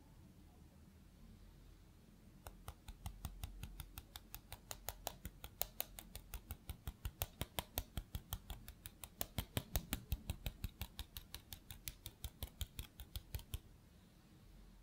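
A small mesh sieve tapped rapidly to dust cocoa powder over a cake: a steady run of light, sharp ticks, about five a second. The tapping starts a couple of seconds in and stops shortly before the end.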